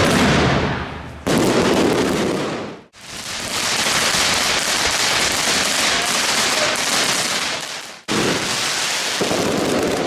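Fireworks hissing and crackling with dense showers of sparks, in several short stretches that cut sharply from one to the next.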